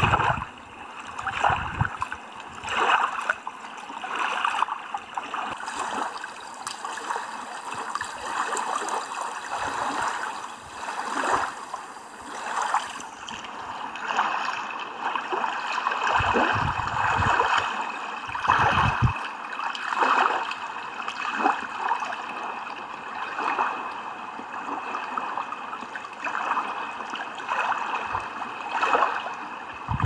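Small waves lapping and trickling at a lake's stony shoreline, in uneven swells about every second or two.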